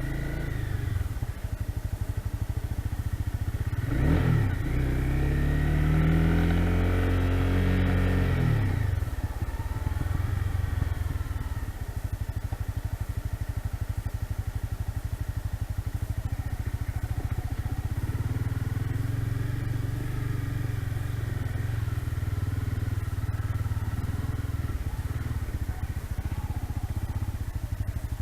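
Motorcycle engine under way, climbing in pitch as it accelerates from about four seconds in, dropping off near nine seconds, then running steadily.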